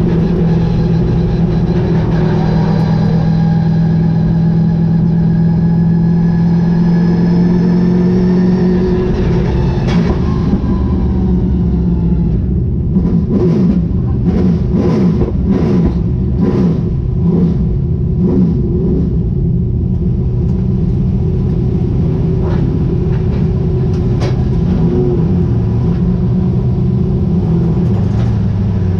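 Super late model race car's V8 engine, heard from inside the car, running at a steady low speed, then changing about ten seconds in and going through several seconds of uneven, rising and falling revs before settling back to a steady drone.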